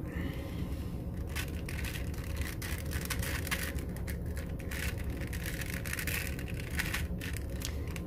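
Rubik's Void cube being turned by hand: faint, irregular plastic clicks and rattles as its layers rotate, over a steady low hum.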